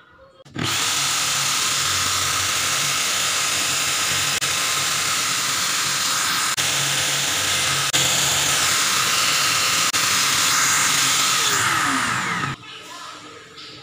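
Corded electric drill running at speed, spinning the grinding stone of a clip-on drill bit sharpener while an 11 mm twist drill bit is ground against it. It starts about half a second in, runs steadily for about twelve seconds, then falls in pitch and stops.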